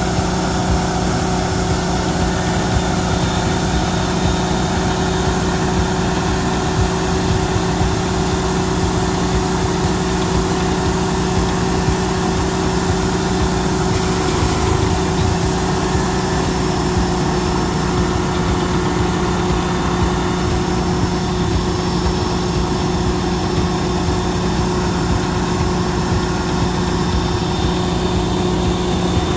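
Small gasoline engine of a trailer-mounted pressure washer running steadily at constant speed, with a brief hiss about halfway through.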